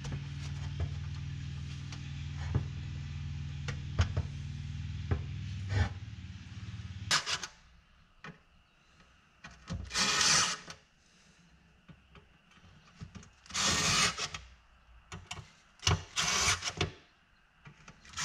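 Cordless drill driving screws into a car's quarter-window panel in four short runs of under a second each, in the second half. Before that, clicks and knocks of parts being handled over a steady low hum.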